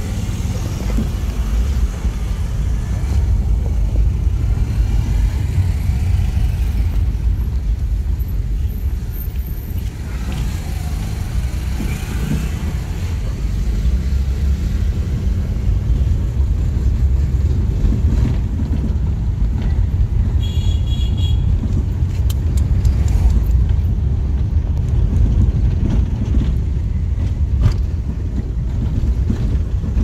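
Steady rumble of a car's engine and tyres on the road, heard from inside the moving car.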